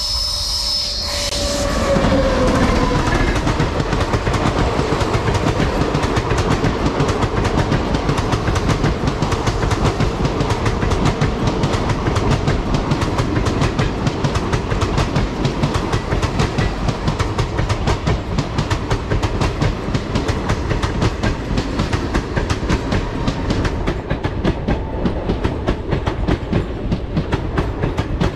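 Indian Railways ICF passenger coaches rushing past at speed, their wheels clattering over the rail joints in a rapid, even clickety-clack over a steady rumble. In the first two seconds a tone falls in pitch as the train's head end goes by.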